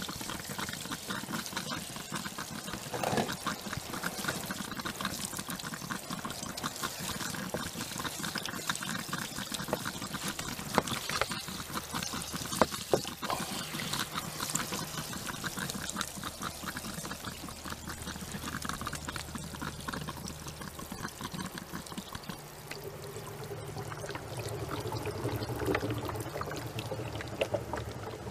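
Gas bubbling and gurgling through water in a homemade hydrogen generator's water bubbler filter, a continuous crackling trickle. A low steady hum joins in over the last few seconds.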